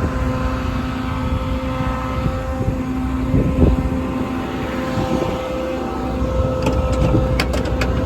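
International DuraStar 4300 service truck's diesel engine running with the PTO engaged, a steady whine riding over the engine, with a brief swell about halfway and a few sharp clicks near the end.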